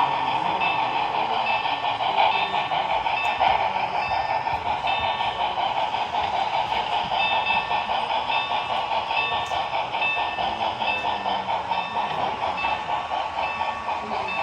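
Sound decoder of an HO-scale Broadway Limited Milwaukee Road S-3 4-8-4 steam locomotive model playing steam running sounds through its small onboard speaker: a steady run of quick chuffs.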